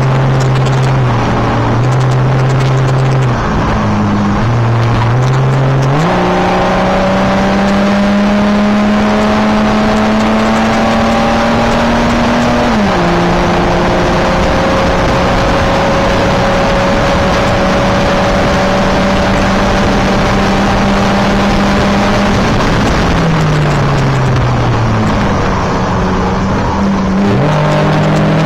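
Race car engine heard from inside the cabin, running hard over steady road and wind noise. Its pitch steps up and down in the first few seconds, then climbs slowly. It drops a little before halfway and holds steady, falls away over a couple of seconds later on, and rises again near the end.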